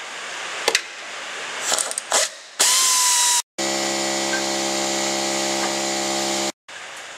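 A power tool spins bolts out of the brace between the engine and the transmission, heard in short edited pieces. A few light clicks come first. About two and a half seconds in there is a loud hissing burst, then about three seconds of steady whirring that cuts off suddenly.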